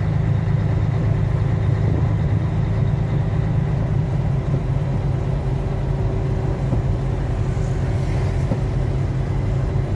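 A truck's engine and road noise heard inside the cab as it drives along a highway at steady speed: an even, low drone with no changes in pace.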